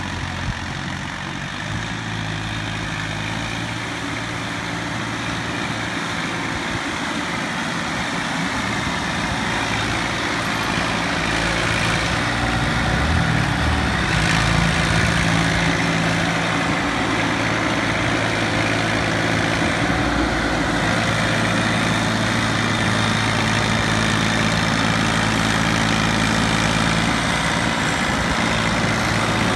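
TAFE 45 DI 4x4 tractor's three-cylinder diesel engine running steadily under load as it works through a flooded paddy field and climbs onto a bank. It grows louder as the tractor comes closer, and its note shifts about halfway through, then holds steady.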